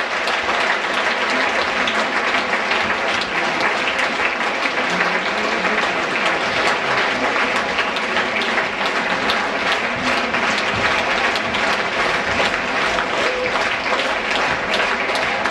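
Audience applauding steadily after a concert performance, many hands clapping in a dense, even patter.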